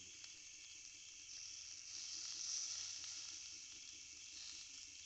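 Fish sizzling on a hot stone heated with embers, a steady hiss that swells a little about two seconds in.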